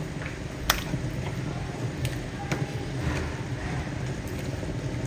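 Pork bones being moved by hand in a stainless steel stockpot of water, giving a few sharp clicks and knocks, the loudest about a second in. A steady low rumble runs underneath.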